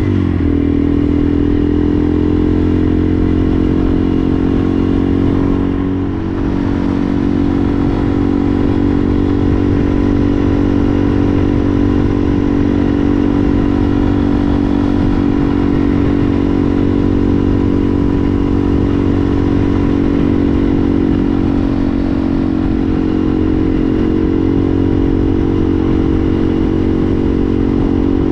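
Yamaha TW200's single-cylinder four-stroke engine running at steady revs under way. The revs dip briefly about six seconds in, then pick back up.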